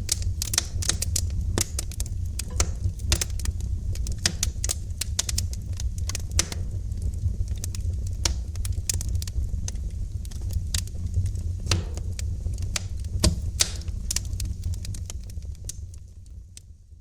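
Wood fire in a fireplace crackling: frequent, irregular sharp pops and snaps over a steady low rumble. The sound fades out over the last two seconds or so.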